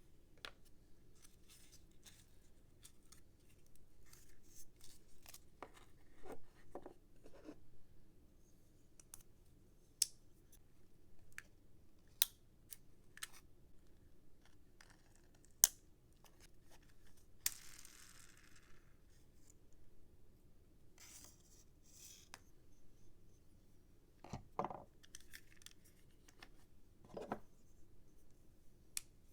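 A toy's retail packaging being opened by hand: scattered sharp clicks and snips, a brief tearing rustle around the middle, and a few soft knocks.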